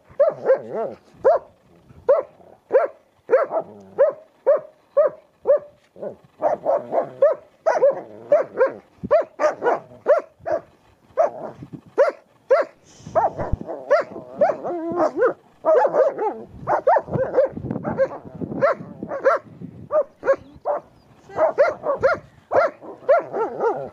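Dog barking over and over in excited play: short, sharp barks about two a second, running together into a denser stretch of overlapping barks in the middle.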